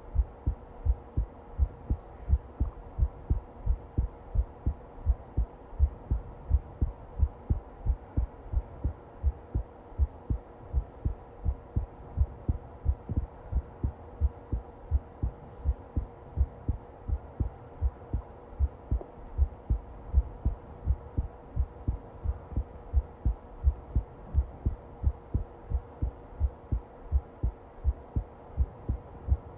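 A heart beating in a steady, even rhythm of low beats, with a faint steady hum beneath.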